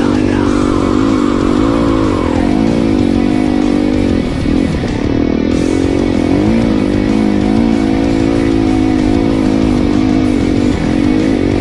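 Yamaha YZ250F dirt bike's single-cylinder four-stroke engine running under way through sand, its pitch rising and falling as the throttle is opened and eased over and over.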